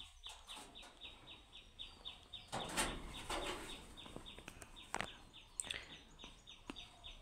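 Faint bird chirping in the background: short chirps repeated steadily, about four a second. A brief soft noise a little under three seconds in.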